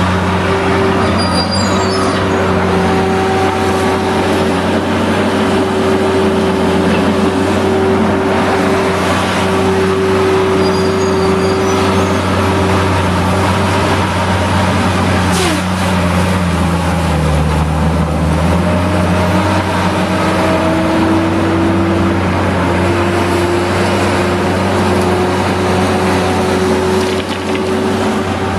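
Large diesel engine running steadily at a constant pitch, dipping briefly a little past halfway. A single sharp snap comes about halfway through.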